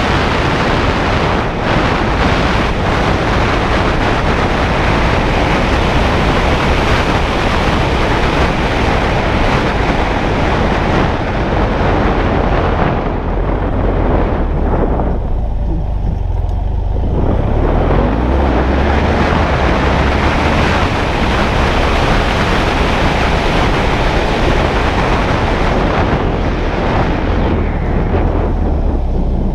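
Heavy wind noise buffeting a GoPro's microphone on a moving BMW F 800 GS motorcycle, a steady rushing hiss with the bike's low engine rumble underneath. The hiss thins out briefly about halfway through, then comes back.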